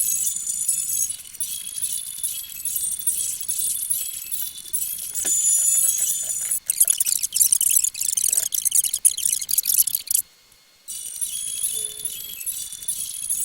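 Telephone hold music with a tinkling, bell-like melody, heard over the phone line; it cuts out briefly about ten seconds in.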